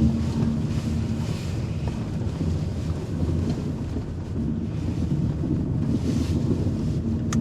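A car moving slowly, heard from inside the cabin: a steady low engine hum under a rumble of road and tyre noise.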